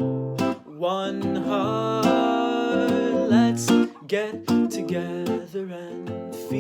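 Acoustic guitar playing chords in the introduction to a reggae song.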